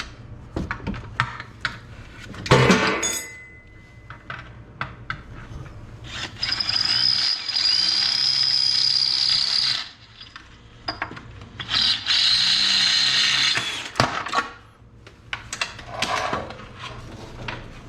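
Power drill boring out a rivet: two steady spells of high whine, the first about three and a half seconds long, the second about two seconds, with a loud metal clank before them and scattered knocks between.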